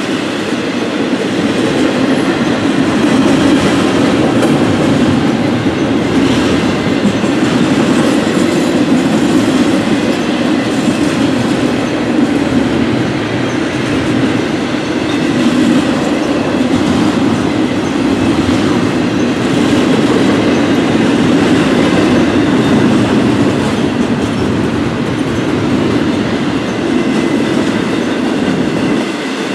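Double-stack intermodal container freight train passing close by, loud and steady: its wheels running on the rails as the well cars go by one after another.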